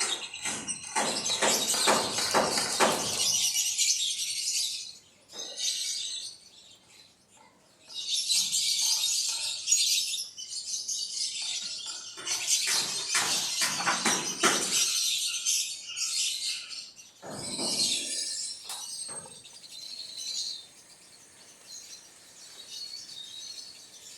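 Birds chirping in dense bursts, mixed with short clicks and knocks, with quieter gaps between the bursts.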